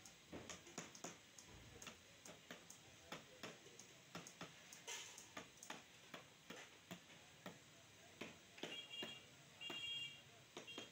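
Small hammer tapping a metal chisel against the plastic lid of a lead-acid battery: light, sharp taps about two a second, with a few short high squeaks near the end.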